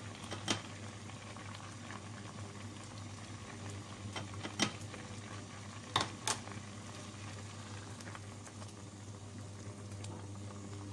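Grape jam bubbling as it cooks down in a pot over medium heat, with a steady low hum underneath and a few sharp clicks.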